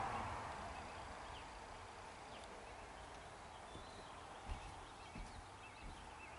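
Quiet outdoor ambience: a low background hiss, with a louder noise dying away in the first second. A few faint, distant small-bird chirps and two soft low thumps come a little past halfway.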